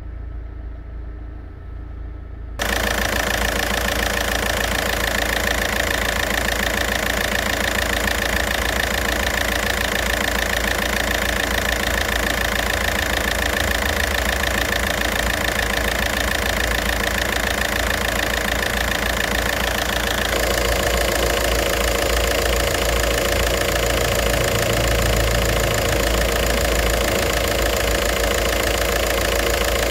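Volkswagen 1.9 TDI PD diesel engine idling hot after its injection timing has been adjusted, heard faintly at first and then much louder from about two and a half seconds in. About twenty seconds in the sound changes and a steady high whine drops away.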